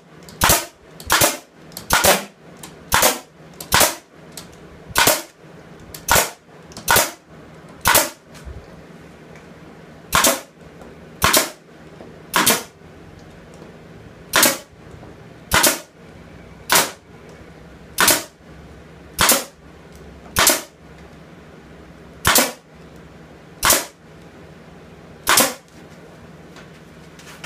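Pneumatic nail gun firing into the wood of beehive frames, a sharp shot about every second, about twenty in all, with brief pauses as it is moved along the row.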